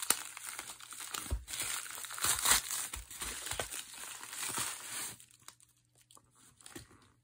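White plastic poly mailer and the plastic wrap inside it crinkling and tearing as they are pulled open by hand; the crinkling stops about five seconds in, leaving only a couple of faint taps.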